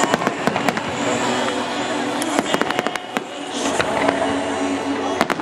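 Fireworks display: shells bursting in many sharp, irregular bangs and crackles in quick succession.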